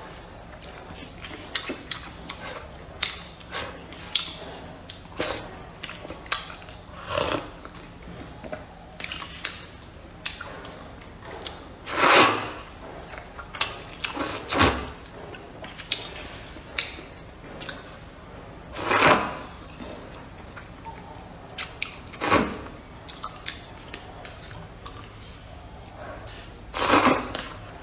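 Person slurping wide translucent noodles in hot and sour soup from a cup, with chewing between. About five long, loud slurps stand out, with many small mouth clicks around them.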